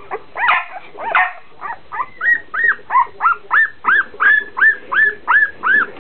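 A very young dachshund puppy crying in a run of short, high squeals. They come a few at a time at first, then a steady three or so a second, as she protests at being held still on the scale.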